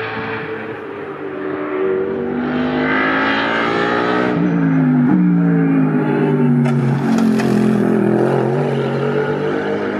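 Race car engines running hard on the circuit, their pitch climbing and then dropping sharply twice about halfway through, growing louder into the second half.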